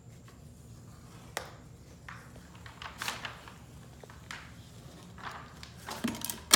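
Scattered short scrapes and taps of a utility knife and hands working along the edge of vinyl wall art as it is trimmed, with a sharper click at the very end.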